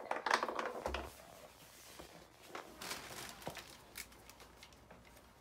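Hollow plastic base of a freestanding punching bag being handled and turned over on a wooden floor: rustling knocks in the first second, a dull thump about a second in, then a few lighter clicks.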